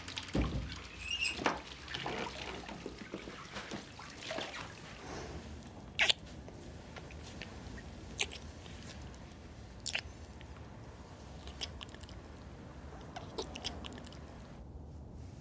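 Scattered small clicks and knocks of objects being handled, a few of them sharp, with a faint steady high hum through the middle.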